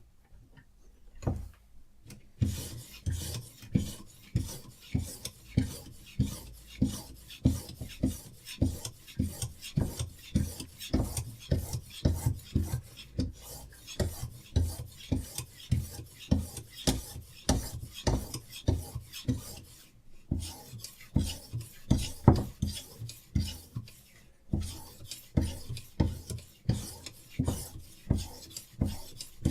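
Diamond sharpening stone on a Hapstone RS guided sharpener rasping along a knife edge in quick back-and-forth strokes, about two a second, starting about two seconds in, with brief pauses twice near the end.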